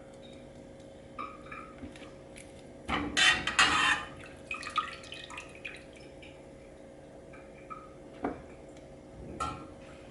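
Kitchen prep sounds: scattered clinks and knocks of dishes and utensils, with a louder noisy burst about three seconds in that lasts about a second, like a brief splash of water, under a faint steady hum.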